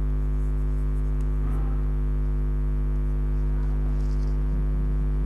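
Steady electrical mains hum with a stack of overtones, with faint scratches of chalk writing on a blackboard.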